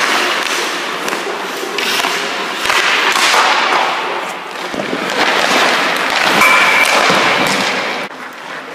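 Hockey skate blades scraping and carving on the ice in repeated swells of rushing noise, with a few sharp knocks.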